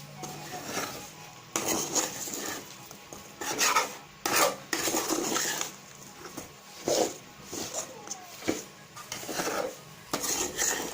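A spatula scraping the pan as it stirs and turns pieces of chicken in a dry masala, in irregular strokes roughly once a second.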